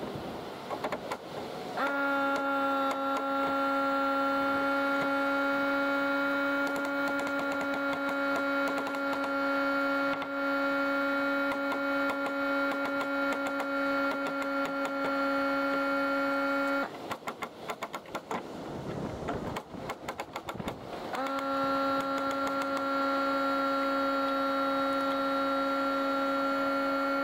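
A steady machine hum at one fixed pitch starts about two seconds in, rising slightly as it comes up, stops, and starts again about four seconds later. Short knocks and taps sound throughout, thickest while the hum is off.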